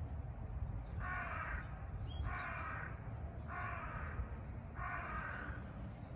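A crow cawing four times, evenly spaced about a second and a quarter apart, over a low steady rumble.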